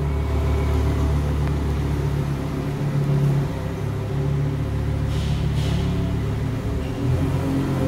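Lamborghini Huracán's V10 engine idling steadily, with a low even rumble and no revving, echoing in an underground car park.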